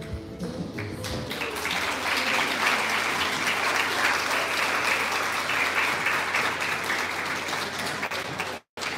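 Music ends within the first second, then a large audience applauds, a dense, steady clapping that fills the hall. The sound cuts out completely for a moment near the end.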